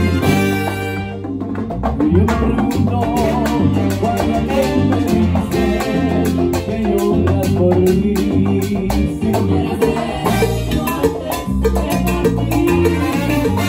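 Salsa music at a steady beat: a full band with congas, bongos and drum kit. Near the end the bongo player switches to a hand-held cowbell.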